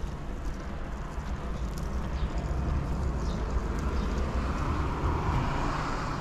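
Steady outdoor rumble and hiss, swelling from about four seconds in, like a vehicle passing.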